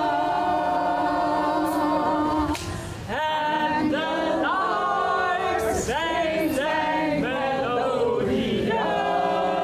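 A small group of mixed voices singing together: long held notes, a brief break, then several upward swooping slides, then another held chord near the end.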